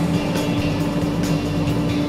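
Combination belt and disc sander running steadily, its motor giving a constant hum over the rush of the moving belt.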